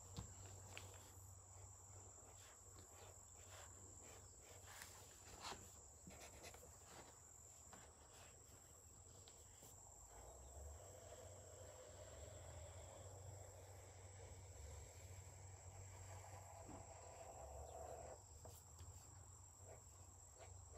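Near silence: quiet room tone with a steady faint high-pitched whine, a few soft clicks, and faint pen strokes on paper in the second half.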